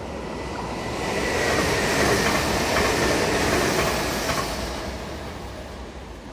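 A Meitetsu semi-express electric train runs past. Its noise builds to a peak a couple of seconds in and fades away, with a faint high whine that falls slightly and a few rail-joint clacks as it goes by.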